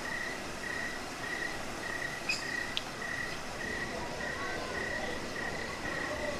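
Crickets chirping in an even, steady pulse of about three chirps a second over a steady outdoor background hum, with one brief higher chirp a little over two seconds in.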